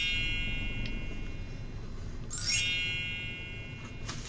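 Two bright sparkling chime sound effects. Each starts with a quick rising shimmer, then rings and fades over about a second and a half; the second comes about two and a half seconds after the first. A short click near the end.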